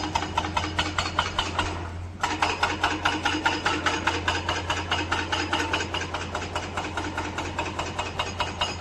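Diesel engine of a construction machine running with a rapid, even clatter of about nine beats a second over a steady low hum, briefly dropping away about two seconds in before coming back.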